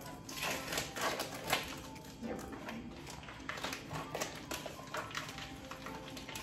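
Quiet background music with a few sharp clicks and knocks in the first couple of seconds, the loudest about a second and a half in.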